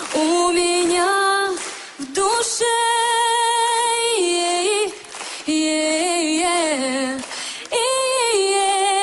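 A woman singing a Russian song a cappella, live and without backing. She sings in about four phrases split by short breaths, with long held notes that carry a wavering vibrato.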